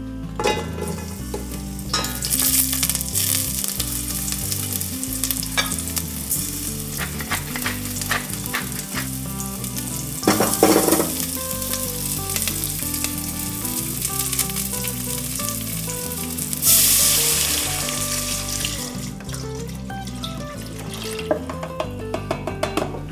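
Chopped onion, garlic, carrot and celery sizzling in hot olive oil in a stainless steel pot, stirred with a wooden spoon now and then. The sizzle flares up about 2 s in, again around 10 s and most strongly around 17 s.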